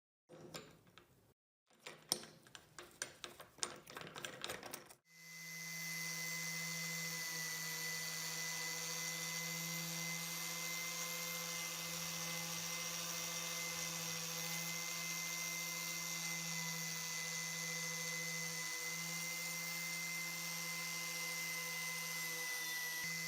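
A few seconds of quick metallic clicks and knocks from parts being handled, then an electric power tool's motor starts and runs steadily at an even pitch.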